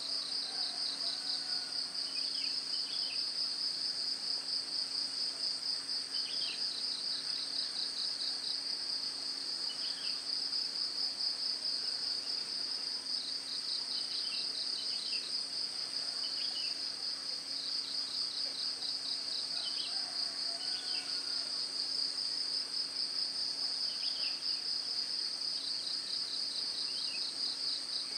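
Crickets trilling steadily in a fast, high-pitched pulsing chorus, with short high chirps recurring every couple of seconds.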